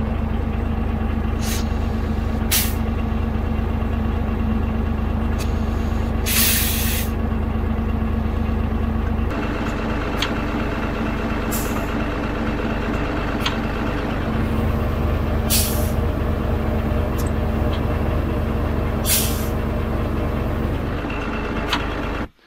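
Road grader's engine running steadily, with several short hisses of compressed air over it and a longer one about six seconds in. The hisses are the air system venting through the turntable-lock air valve, now working again after a blocked outlet was cleaned out.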